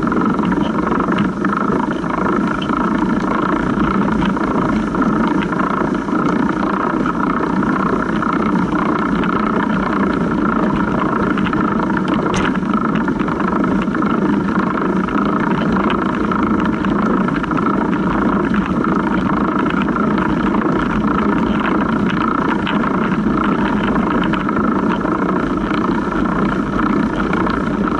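Chain of a Surly Big Dummy long-tail cargo bike running over the idler pulley under the seat: a steady whirring rattle with many small clicks, heard over the tyres rolling through rutted snow. One sharper click comes about halfway through.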